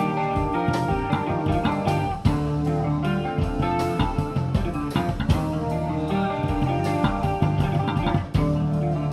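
Live rock band playing, led by guitar over bass and drums.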